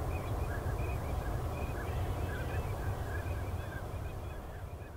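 A flock of waterbirds calling in many short, repeated notes over a steady low rumble, slowly getting quieter toward the end.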